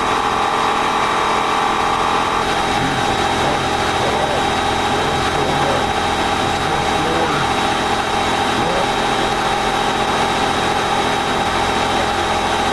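A loud, dense mash of many overlapping audio clips playing at once: a wall of steady tones and a low drone, with faint wavering sounds mixed in.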